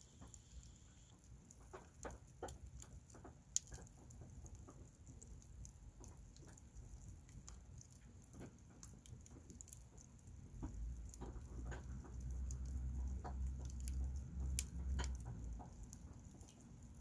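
Split wood logs burning in a metal fire pit, crackling with irregular small pops and a few sharp louder snaps, one about a quarter of the way in and one nearer the end. A low rumble swells underneath past the middle for about five seconds.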